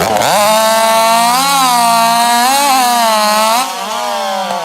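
Modified race chainsaw running flat out through a timed cut in a log, its pitch sagging and recovering slightly under load. About three and a half seconds in, the cut ends and the engine drops off in level and pitch.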